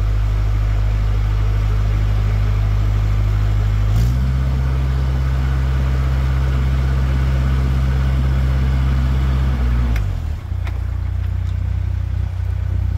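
Narrowboat engine running steadily, its revs stepping up about four seconds in as the boat is put astern, then falling back to a lower tick-over near the end.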